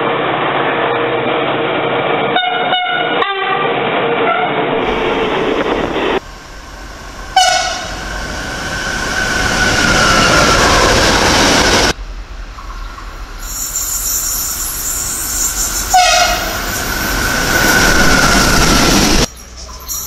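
Train horns in a run of short station recordings. First, an approaching locomotive gives a few short horn toots. Then an electric locomotive hauling tank wagons gives one horn blast and rumbles past. Last, another train sounds one horn blast and rushes past.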